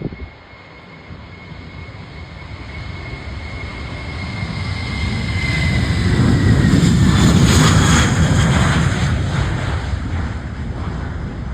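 Jet airliner passing by, its engine noise swelling to a peak about seven seconds in and then fading. A high whine drops slightly in pitch as it goes past.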